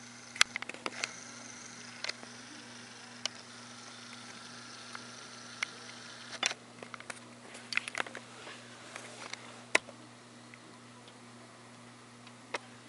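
Scattered sharp clicks and light taps of handling, some in quick little clusters, over a steady low hum and hiss.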